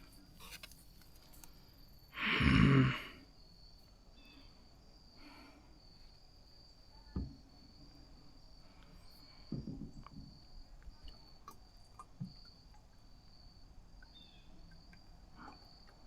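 Crickets trilling steadily in the background. A loud, brief rush of noise about two seconds in and a few faint knocks later.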